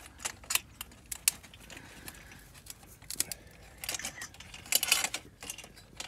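Metal clinks and clicks of a stainless steel stove flue pipe and its clamp being fitted together by hand, with a denser run of clicks about four to five seconds in.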